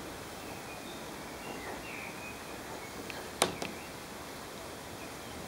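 Outdoor background noise with faint, short bird chirps now and then, and one sharp click about three and a half seconds in.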